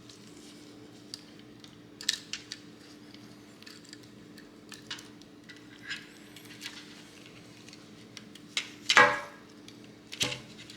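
Small metal clicks and scrapes of a tool and screw as a screw is worked out of a 3D printer extruder, over a steady low hum. A louder burst of handling noise comes about nine seconds in.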